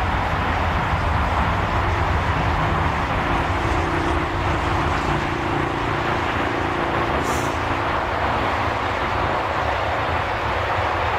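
Boeing 787 Dreamliner's GEnx-1B turbofans running at taxi power as the airliner taxies: a steady rushing jet hum over a low rumble.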